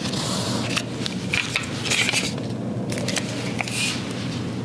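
Handling noise from two pistols, a Glock 19X and an FN 509 Tactical, moved about in the hands: scattered clicks and several short rustling scrapes of polymer and metal over a steady low hum.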